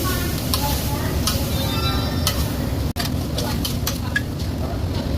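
Food frying in a commercial kitchen: sizzling, with scattered clicks and knocks, over a steady low rumble.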